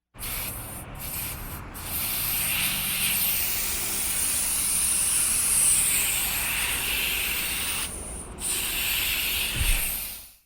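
Aerosol spray paint can spraying in a steady hiss, with two brief breaks early on and a longer pause about 8 seconds in, then a final spray that cuts off just before the end. A low bump is heard shortly before it stops.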